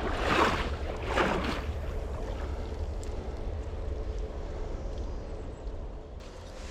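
Two crunching footsteps on rocky, leaf-strewn ground in the first second and a half, then a steady low wind rumble on the microphone over a faint rushing hiss.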